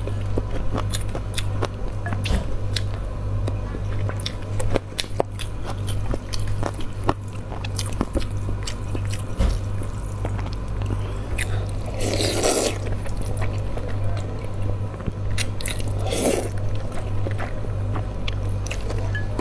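Close-miked eating: wet chewing with many small mouth clicks as a hard-boiled goose egg and cold alkaline noodles are eaten, with two louder slurps of noodles about twelve and sixteen seconds in. A steady low hum runs underneath.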